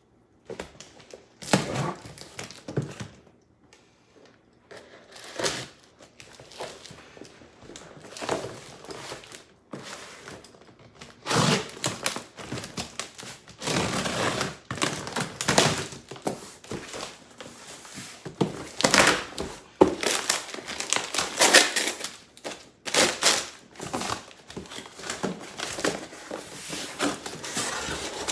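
A delivery package being torn open and handled: irregular crinkling, rustling and tearing of the packaging with occasional thunks, sparse at first and much busier from about the middle on.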